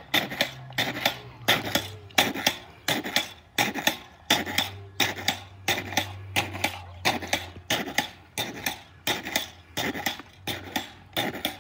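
Pogo stick bouncing steadily on concrete: a sharp clattering strike at each landing, about three bounces every two seconds.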